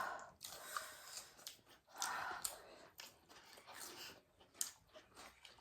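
Faint eating sounds: chewing, mouth smacks and small irregular clicks.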